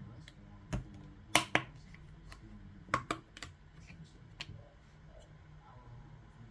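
Scattered sharp clicks and taps, about seven, of a Bose SoundLink Color II speaker's plastic case being handled and worked at to get it open. The loudest pair comes a little over a second in.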